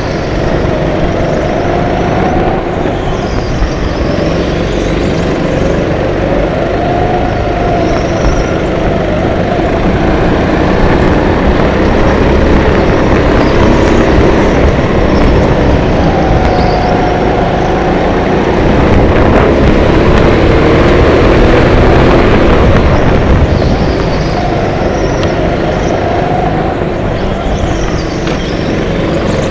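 Racing go-kart heard from onboard, its motor running hard and rising and falling in pitch as the throttle opens and closes through corners and straights, loudest about two-thirds of the way through.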